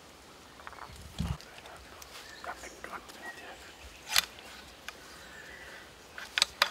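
Sharp metallic clicks from a tranquilizer dart rifle being handled and loaded: one loud click about four seconds in and a quick pair near the end, after a dull thump about a second in.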